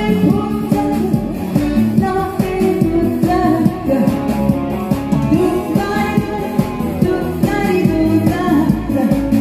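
A woman singing a song over a backing track with a steady beat.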